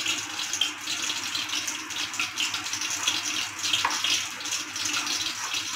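Steady rushing hiss with a faint low hum beneath it.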